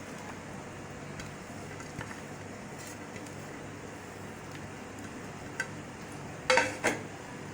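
Faint steady background hum with a few small clicks, then two sharp knocks of a utensil against a dish, in quick succession near the end, as chopped ingredients are added to the mashed lentil mixture.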